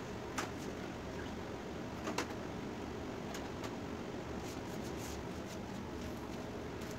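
Handling of a TCL 55-inch LED TV's glass LCD panel as it is lifted off the backlight frame with suction cups: a few sharp clicks and taps, the loudest about two seconds in, over a steady room hiss.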